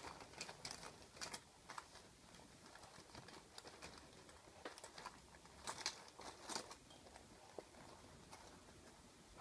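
Near silence with faint, scattered clicks and light scratchy rustles, a few louder ones a little past the middle.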